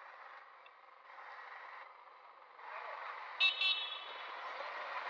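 Road traffic noise swelling as a vehicle passes, with two short high-pitched squeals a fraction of a second apart about three and a half seconds in.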